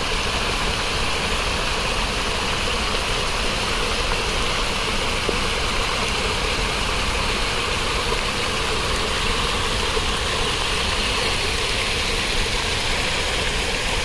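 Water rushing steadily in a mountain stream, an even unbroken noise of flowing water.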